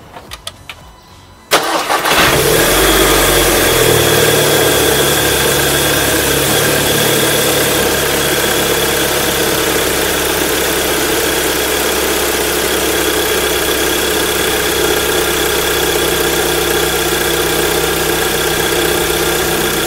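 Audi S3 8P's 2.0 TFSI turbocharged four-cylinder engine starting about a second and a half in, then idling steadily. It is a short run to push freshly added oil through the filter and galleries after an oil change, before the level is checked again.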